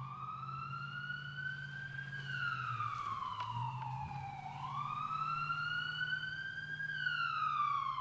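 Siren wailing, its pitch rising and falling slowly, about one full cycle every five seconds, over a low steady hum.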